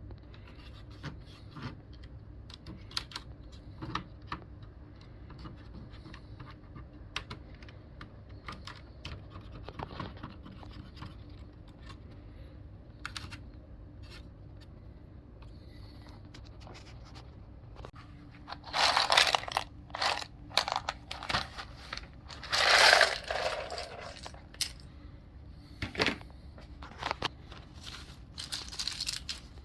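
Small plastic clicks, clatters and scrapes from mechanical keyboard parts being handled, with two louder noisy bursts of about a second each past the middle.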